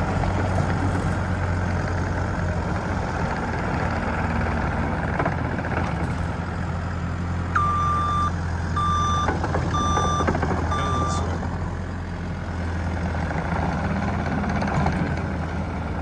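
2015 New Holland C227 compact track loader's diesel engine running steadily as it drives around on its rubber tracks. Its backup alarm beeps four times about halfway through, the sign that it is reversing.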